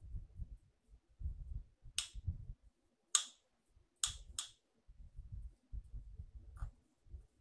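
A thin wooden stick knocking and scraping in a plastic cup: five or so short, sharp clicks, two of them close together about four seconds in, over low dull bumps.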